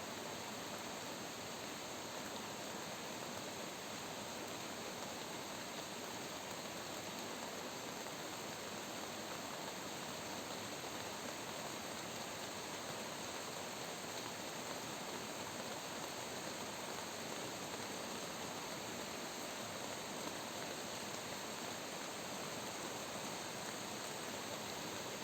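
Steady rain falling: an even hiss, with no separate drops or other sounds standing out.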